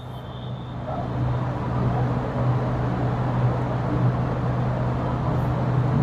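Steady low hum and rumble of a running engine, like road traffic, swelling about a second in.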